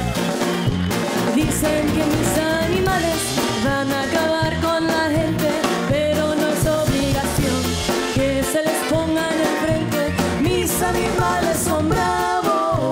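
A woman singing a corrido live with a norteño-style band: drum kit, bass, electric guitar and twelve-string guitar playing under her voice.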